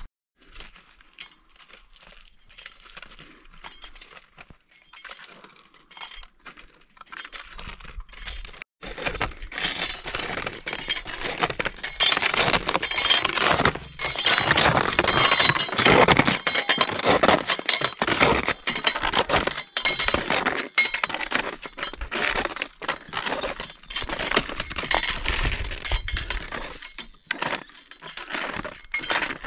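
Dense, irregular clinking and clattering of hard pieces knocking together, faint at first and much louder from about nine seconds in.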